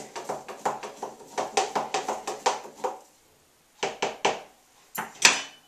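A spoon stirring green juice in a plastic jug: a quick run of knocks and scrapes for about three seconds, then after a short pause a few separate taps, the loudest near the end.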